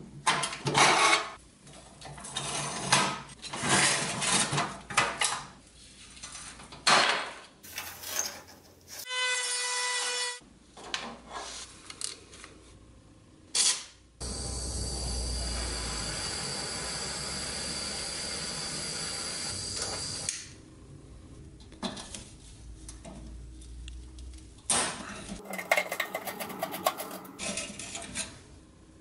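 Hand tools scraping, tapping and rubbing against the rusty steel parts of a Nylint Traveloader toy truck. Around the middle, an aerosol can of Blaster penetrating oil sprays with a steady hiss for about six seconds.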